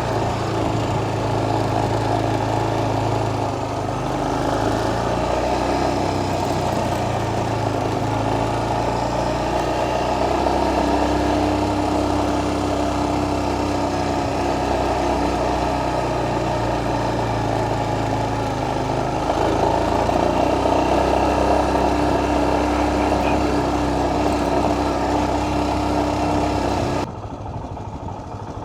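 Motorcycle engine running steadily under way, its pitch shifting a few times with speed. Near the end the sound suddenly drops quieter.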